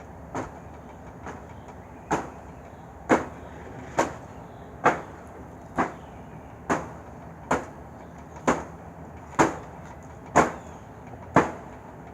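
An old TV set being struck over and over, about a dozen hard blows at roughly one a second, each a sharp knock with a brief ring; the first two are lighter.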